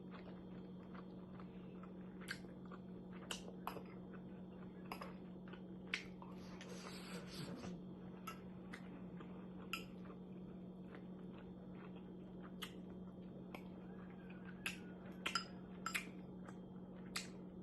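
Faint eating sounds: chewing, with scattered short clicks, over a steady low hum.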